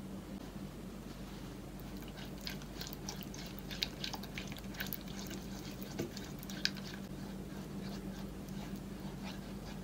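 Silicone spatula stirring egg yolks into a thick soufflé base of flour, milk and butter in a metal saucepan: sticky, wet squelching with many small clicks, starting about two seconds in. A steady low hum runs underneath.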